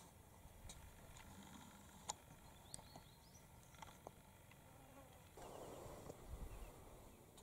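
Near silence: faint outdoor ambience with a few small ticks, then a faint insect buzz from about five seconds in, with a few low thumps near the end.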